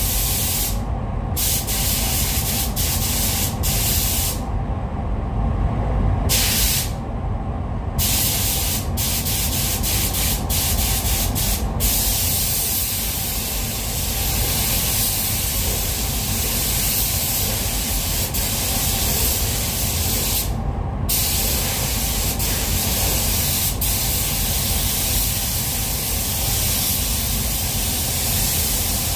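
Compressed-air paint spray gun hissing as it sprays blue base coat in a blend onto a car's door and rear quarter panel. The hiss cuts out briefly a few times in the first eight seconds and once about two-thirds of the way through as the trigger is released. A steady low rumble runs underneath.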